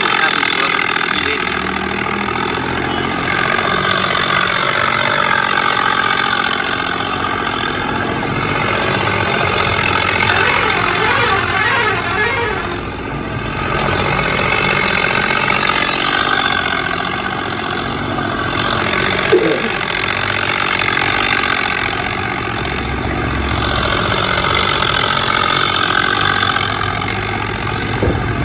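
A vehicle engine running continuously and loudly, its pitch wavering, with a single short sharp knock about two-thirds of the way through.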